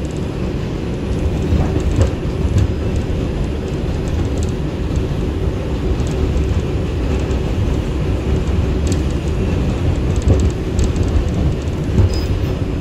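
2-line New York City subway train running on elevated track, heard from inside the car: a steady low rumble with a few sharp clicks scattered through it.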